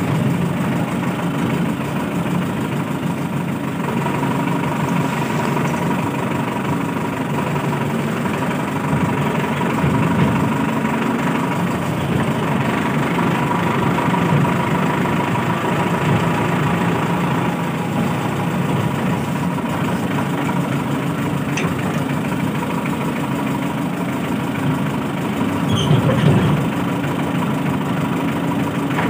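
A large engine idling steadily, a continuous low running hum with a steady high tone over it, swelling briefly near the end.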